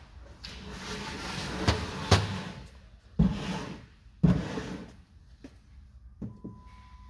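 Metal transmission parts being handled inside an aluminium automatic transmission case: rattling and scraping with a couple of sharp knocks, then two heavy clunks about a second apart that ring briefly, and a few light clicks near the end.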